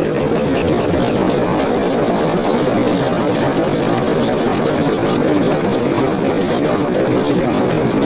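Water rushing steadily: a dense, even, deep rush with no breaks.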